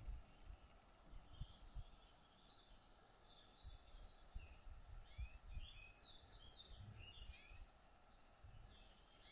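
Faint birdsong: small birds chirping in many short, quick calls, busiest past the middle, over soft irregular low rumbles.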